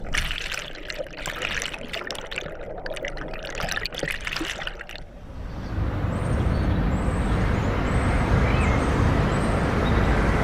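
River water splashing and rushing, with quick irregular splashes. About halfway it cuts off abruptly and a steady low rumble takes over.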